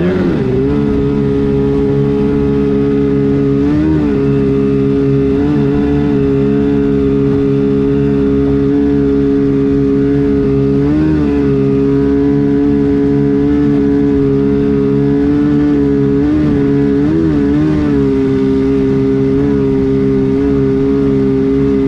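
Kawasaki 750 two-stroke jet-ski engine driving a jet jon boat at steady high throttle, a loud steady drone. Every few seconds, about four seconds in, about eleven seconds in and twice near the end, the pitch surges briefly, typical of the jet pump sucking air as the hull bounces over the chop.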